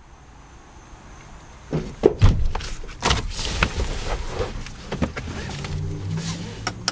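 A car door opened and a man climbing into the seat: a loud knock about two seconds in, then further knocks and rustling as he gets in.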